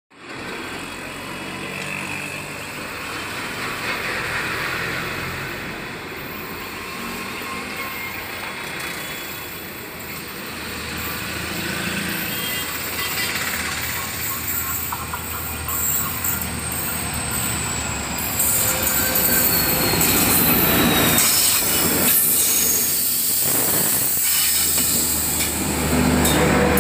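A WDP4D diesel locomotive running as it approaches along the track, growing louder until the train passes close by after about 18 seconds. The coaches then roll by with wheels knocking over the rail joints and a high falling whine from the wheels.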